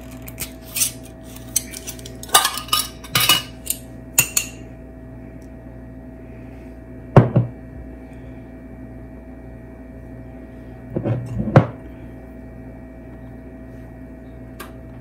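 A metal measuring spoon clinking and knocking against the stainless steel mixing bowl and ingredient jar as baking powder is measured out: a run of quick clinks in the first few seconds, one sharp knock about seven seconds in, and a short cluster of knocks around eleven seconds.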